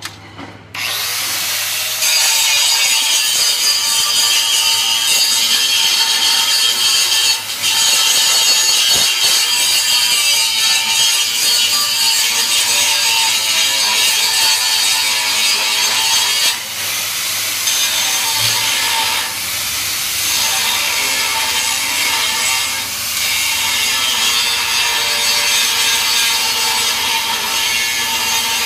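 Electric angle grinder starting up under a second in, then grinding steel plate with a steady, loud hiss of disc on metal, dipping briefly a couple of times.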